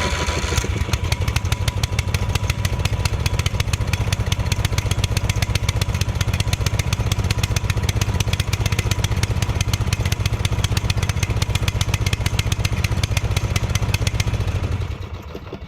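Murray riding lawn mower engine, just started after sitting for a year or two, running fast and steadily on gasoline sprayed into it, then stopping near the end. It is running badly, with the choke on and the throttle stuck wide open by a sticking governor.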